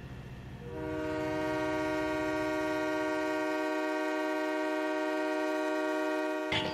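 Train horn sounding one long, steady, multi-note chord of about six seconds, starting about a second in, over a low rumble that fades out partway through.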